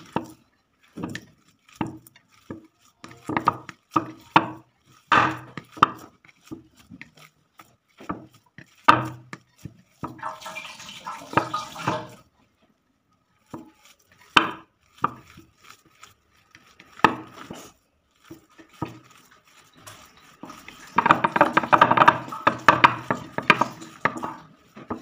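Hands kneading and crumbling soft, crumbly gulab jamun dough on a ceramic plate: irregular clicks and knocks of fingers and plate, with denser stretches of rubbing about ten seconds in and again near the end.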